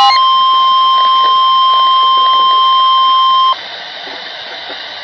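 NOAA Weather Radio's 1050 Hz warning alert tone from a weather radio: one steady, loud tone that cuts off suddenly about three and a half seconds in, leaving radio hiss. The tone signals that a warning broadcast, here a severe thunderstorm warning, is about to follow.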